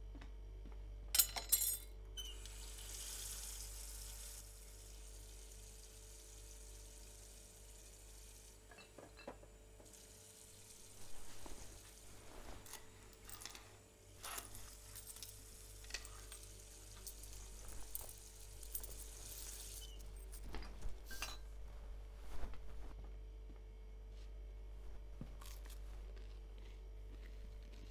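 Kitchen handling sounds: sharp clinks of crockery and cutlery about a second in, then scattered knocks and clinks with stretches of steady hissing like running water. A low electrical hum runs underneath.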